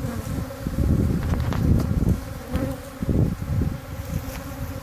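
Many honey bees buzzing loudly around the microphone, agitated after their hive has been disturbed; the buzz swells and fades as they fly close past.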